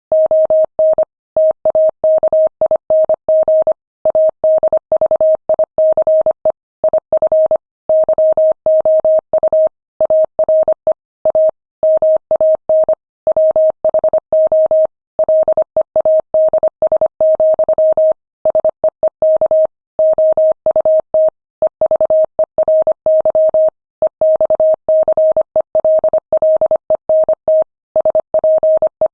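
Morse code sent at 25 words per minute: a single steady beep keyed on and off in quick dots and dashes, with short pauses between letters and longer ones between words.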